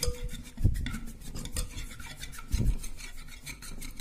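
Wire whisk beating thick jalebi batter of maida flour and water in a glass bowl: a rapid, rhythmic scraping and clicking of the wires against the glass, with a couple of louder knocks.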